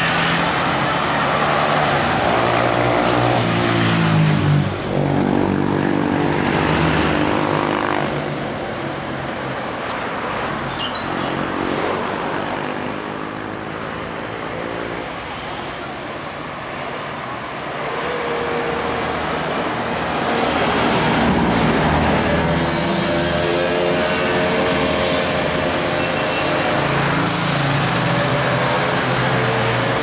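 Tour buses' engines running and revving as they pass, the engine note rising and falling, over the noise of road traffic and motorcycles.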